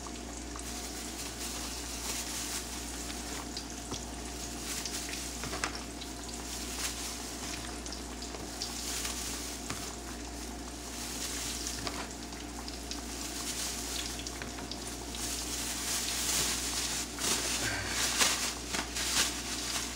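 Battered porgy frying in hot oil in a skillet: a steady sizzle with scattered crackling pops, which gets louder and busier over the last few seconds.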